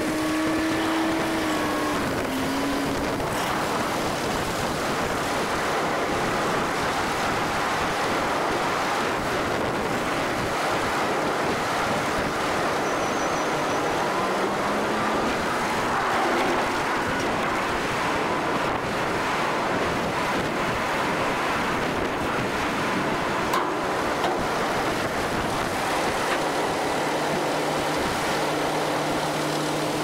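A load of sugar beets rumbling out of a truck box into a beet piler, with a steady rush of tumbling beets and machinery. A motor tone drops in pitch about two seconds in.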